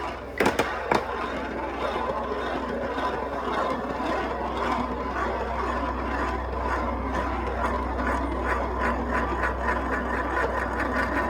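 Marbles rolling continuously down a wooden marble-run track and circular slopes, a steady rolling rattle with a couple of sharp clicks in the first second. A quick, regular clicking grows toward the end.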